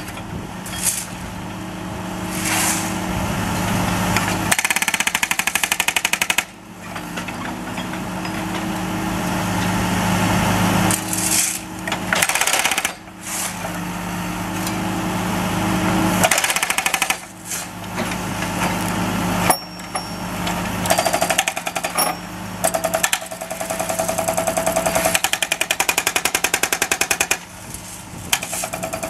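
Jackhammer with a chisel bit breaking up asphalt around a road drain grate: long runs of rapid blows, with several short pauses.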